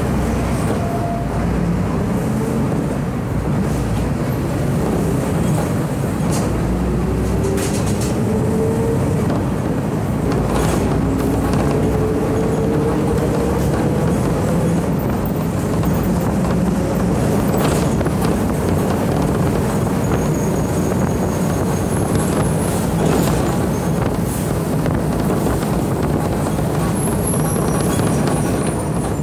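City bus diesel engine, the MWM engine of a Marcopolo Torino, running under way as heard from inside the passenger cabin, a steady rumble mixed with road noise. Partway through, its note rises a couple of times as the bus accelerates.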